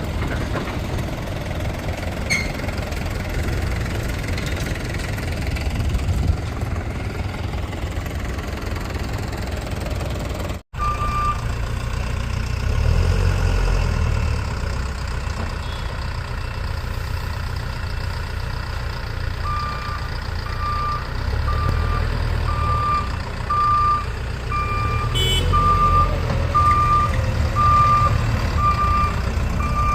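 Bull SD backhoe loader's diesel engine running, with the rumble rising twice as the machine works. A reversing alarm beeps steadily about once a second over the last third.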